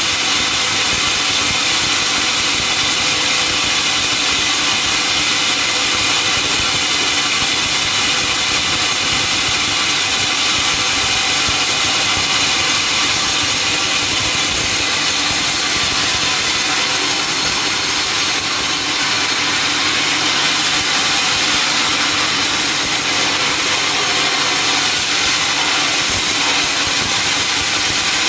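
Sawmill saw running steadily through a log with a constant high-pitched machine noise.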